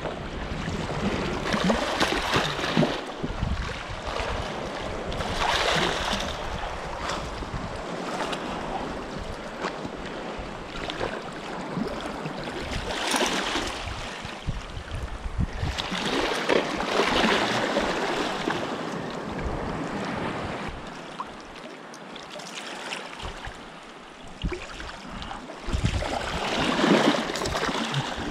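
Small waves surging and washing over rocks at the shoreline, swelling and falling every few seconds.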